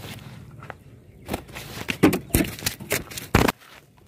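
Irregular rustling and short thumps of footsteps through grass and the camera being jostled, loudest a little after halfway and again near the end.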